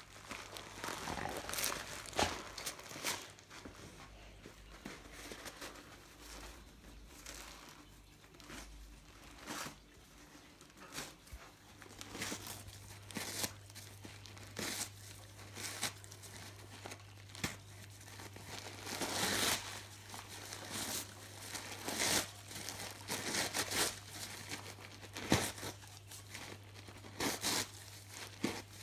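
A golden retriever ripping and crumpling tissue paper wrapping, tugging with its teeth while pinning the paper with a paw. The rustling and tearing comes in irregular bursts.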